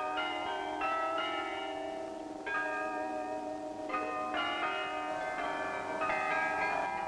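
Bells playing a slow tune, one ringing note after another, with a short break about two and a half seconds in.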